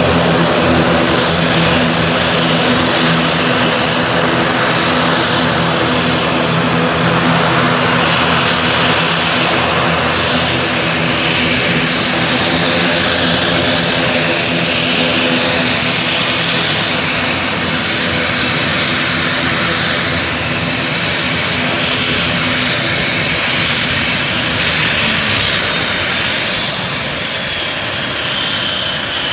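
ATR 72-600 turboprop's Pratt & Whitney PW127 engines running loud and steady at close range: a droning propeller hum with a high turbine whine. Near the end the pitch falls and the sound drops as the engines wind down and the propellers slow.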